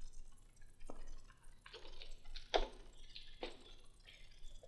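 Handling noises: three sharp light knocks or taps spread over the few seconds, with soft rustling between them.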